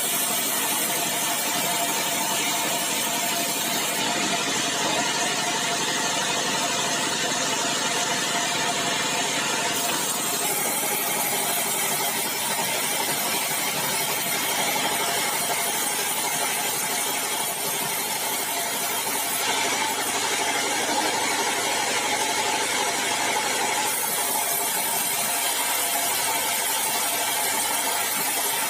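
Sawmill bandsaw running steadily. The highest part of its hiss drops away twice for several seconds, about four seconds in and again past the twenty-second mark.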